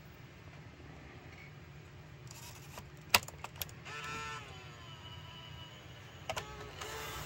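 Small motors in a Canon E77 8mm camcorder whirring in short spells, with sharp button or mechanism clicks; the loudest click comes about three seconds in, and a brief whir follows about a second later with its pitch sagging slightly.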